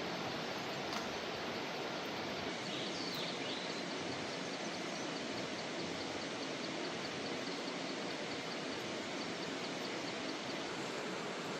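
Steady rushing roar of floodwater in a swollen mountain stream, unbroken throughout.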